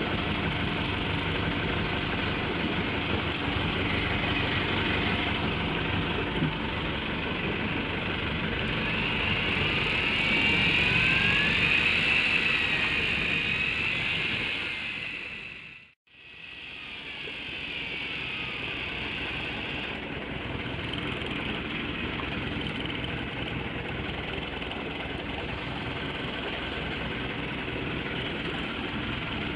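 Fishing boat's engine running at idle under the motor whine of a Command X-8 electric reel winding in a hooked fish; the whine rises in pitch around the middle. The sound briefly drops out about halfway, then the steady engine hum returns.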